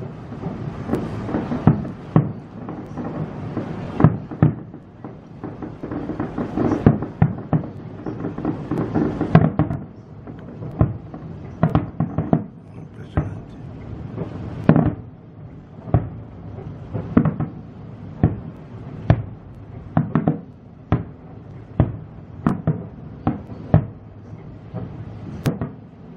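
Aerial firework shells bursting in a rapid, irregular string of bangs over a low rumble, crowded together for the first ten seconds or so, then thinning to separate bangs roughly one every second.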